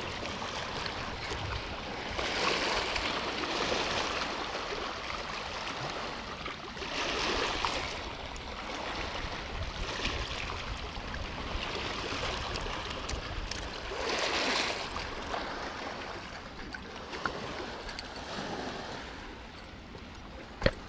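River water washing and splashing against a rocky bank, swelling and easing every few seconds. A single sharp click comes near the end.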